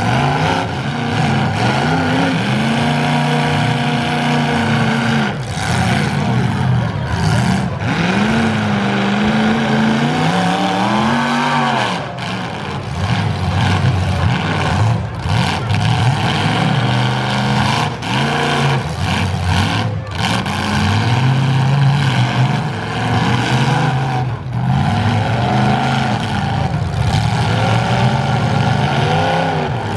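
Engines of two modified full-size demolition derby cars revving up and falling back again and again as the cars push against each other, with scattered sharp bangs of metal hitting metal.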